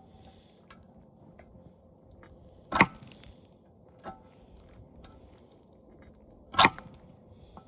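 Metal tool knocking at the steel plate of an old TV's glass picture tube: two loud, sharp knocks with a short ring, about three and four seconds apart, with a few lighter clicks between them.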